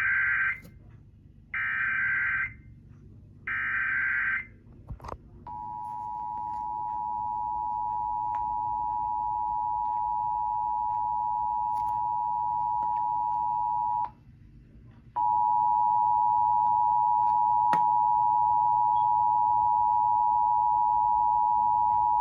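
Emergency Alert System test signal. First come three short bursts of the warbling SAME digital header. Then the two-tone EAS attention signal sounds, a steady dual-pitched tone held for about eight seconds; it breaks off for about a second and starts again for about another eight seconds.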